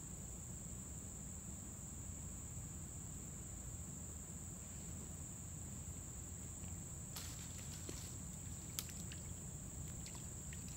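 Steady high-pitched drone of insects calling. From about seven seconds in, a scatter of faint clicks and rustles joins it.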